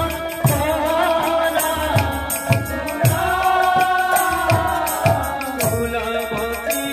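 Devotional kirtan music: khol barrel drums beating about twice a second under metallic cymbal strokes, with a keyboard holding steady notes and a voice singing a long rising and falling line in the middle.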